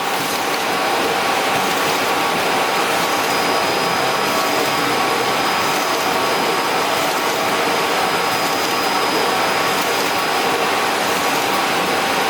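Ricoh Pro C7500 production colour printer running: a steady machine whir with a faint high-pitched whine.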